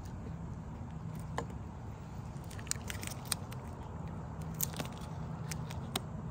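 Scattered small clicks and sticky crackles as roof sealant is pressed and worked into a seam by hand, over a steady low hum.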